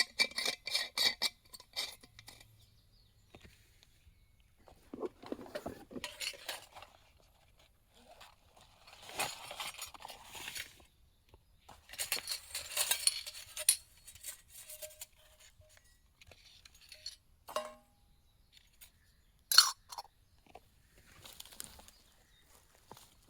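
Cookware and utensils being handled: a quick run of ringing metallic clinks at the start, then intermittent scraping and rustling with a few sharp clicks, the loudest about two-thirds of the way through.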